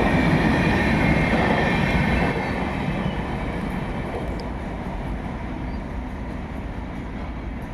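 Indian Railways express passenger train running past on the track: a steady rumble of wheels on rails that drops in level about two seconds in, then dies down gradually.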